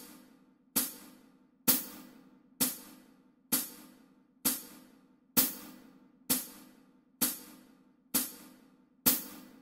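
Steady beat of single cymbal-like percussion ticks, about one a second, ten strikes each fading quickly. No clarinet plays: the part is resting.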